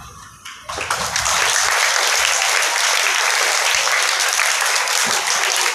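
An audience of schoolchildren applauding. The clapping breaks out suddenly just under a second in and then holds steady.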